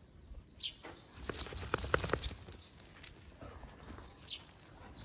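Footsteps of leashed Akita dogs and their walker, with a quick run of sharp clicks and taps about a second and a half in.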